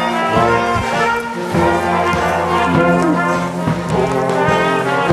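Brass band playing a march, trombones and trumpets sounding together in held notes.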